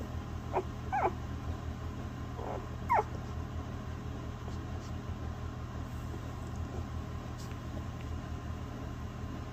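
Newborn Basset Hound puppies squeaking and whimpering, about four short, high squeaks in the first three seconds, over a steady low hum.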